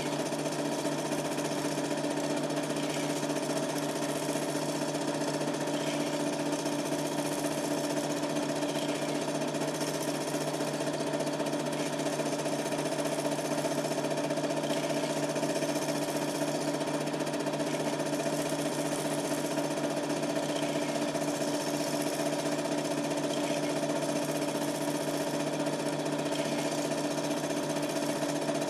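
Super 8 film projector running, a steady motor hum with the fast, even clatter of the film transport.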